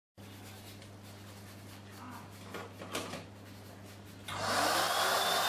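A towel rubbing over a wet cat's fur, with soft rustling and scraping against a low steady hum. About four seconds in, a pet grooming blow dryer switches on: its motor whine rises and settles into a loud, steady rush of air.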